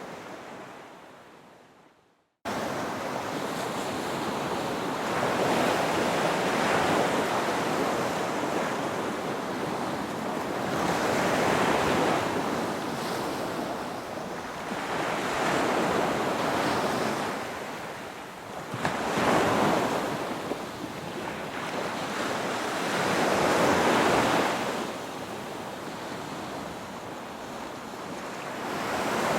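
Ocean surf: waves roll in and wash up in a steady cycle, swelling and falling every four to five seconds. About two seconds in, the sound fades briefly to silence, then cuts back in abruptly at full strength.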